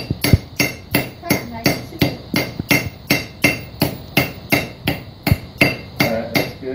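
Hand hammer striking a hot cut again and again, about three blows a second, each with a short metallic ring, cutting through a bar of hot steel.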